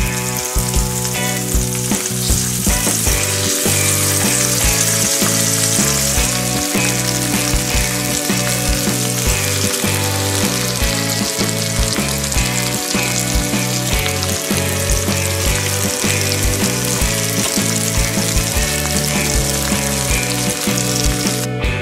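Melted stress-ball filling sizzling and bubbling on the hot plates of an electric waffle iron, over background music with a steady beat; the sizzle cuts off near the end.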